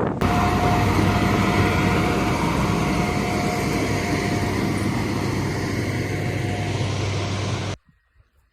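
A heavy vehicle's engine running steadily with a faint steady whine; it cuts off suddenly near the end.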